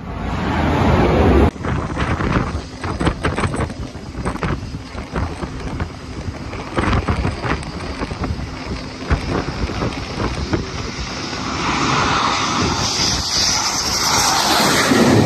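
Jet noise from a Dassault Rafale's twin turbofan engines. It is loud at the start, cuts off abruptly about a second and a half in, and swells again near the end as the fighter comes in low and close. Wind buffets the microphone throughout.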